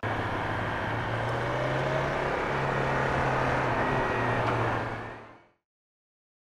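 Motorcycle engine running steadily with road and wind noise, fading out to dead silence about five seconds in.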